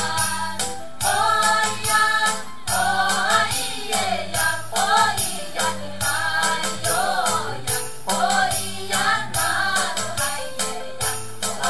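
Amis dance song: a group of voices singing a melody over a steady beat of jingling percussion.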